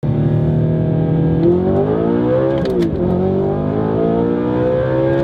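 Straight-piped APR Audi R8 heard from inside the cabin, accelerating: the engine note climbs, drops briefly about halfway through, then climbs again.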